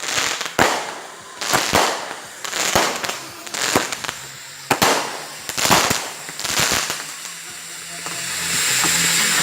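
A small consumer firework going off in a string of sharp cracks and pops, one or two a second, with a hiss between them. The cracks stop about seven seconds in, and a steady hum and hiss rises near the end.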